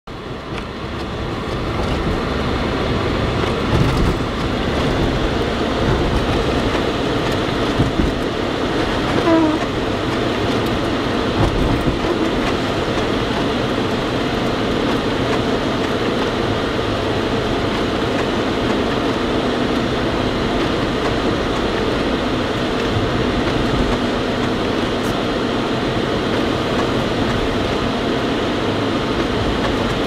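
Steady rumble of a car driving on a slushy, snow-covered road, heard from inside the cabin, with a few short knocks in the first twelve seconds.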